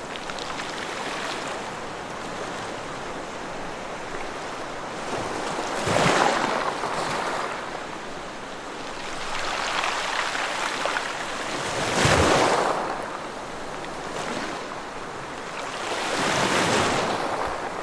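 Ocean waves breaking on a shore, a steady wash of surf with three louder surges of a wave crashing, the strongest about twelve seconds in.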